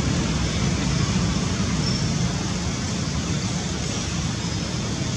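Steady rumbling outdoor background noise with a hiss over it, unbroken and even in level, with two faint short high chirps about two seconds in and again near the end.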